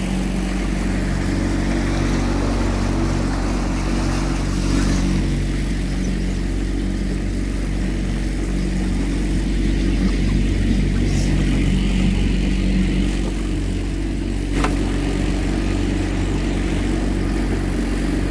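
Small boat's outboard motor running steadily under way. A single sharp knock sounds about three quarters of the way through.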